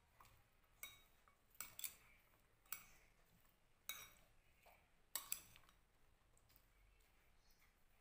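Metal spoon clinking against a glass bowl while stirring diced vegetables: six or seven light clinks, some in quick pairs, stopping about five and a half seconds in.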